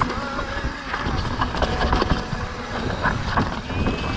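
Mountain bike rattling down a rough trail: the bike clatters with frequent sharp knocks and the tyres crunch over dirt and rock, over a steady rumble of ground and wind noise on the helmet-mounted action camera. A brief faint squeal comes near the end.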